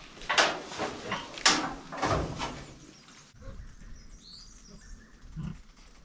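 Farm animal calling in a run of about five loud, harsh cries over the first three seconds, then quieter outdoor background.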